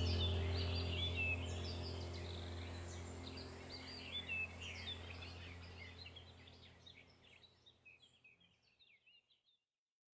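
Backing track of birdsong chirping over a low steady drone, fading out to silence about seven seconds in.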